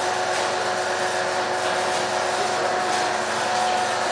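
Steady mechanical hum with a constant held tone, unbroken and without ticks.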